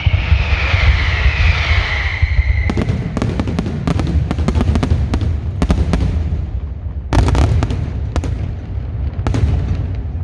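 A fireworks barrage with a steady low rumble of explosions. A falling whistle fades out in the first two seconds or so, then rapid sharp firecracker cracks start about three seconds in, with a dense burst of cracks about seven seconds in.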